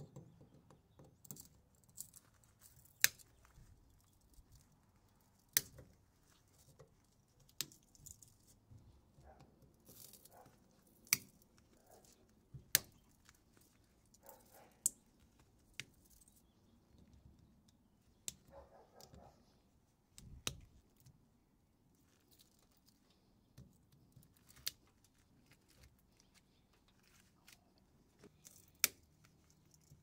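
Blunt side cutters snipping through the copper windings of a ceiling fan motor's stator: sharp, irregular snips every couple of seconds, with faint scraping and handling of the wire between cuts.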